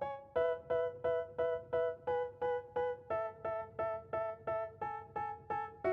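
Background music: a keyboard plays a steady run of repeated notes, about three a second, with the notes stepping lower about halfway through.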